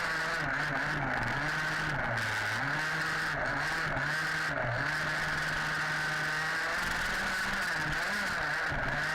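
HPI Baja 5B's small two-stroke petrol engine running at high revs. Its note drops briefly several times as the throttle is eased and then climbs back, over a constant rattle and rush of noise.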